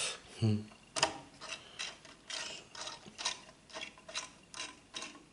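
Ratchet-like clicking, about two to three sharp clicks a second at an uneven pace, as a CPU cooler's mounting screw that has stuck is worked.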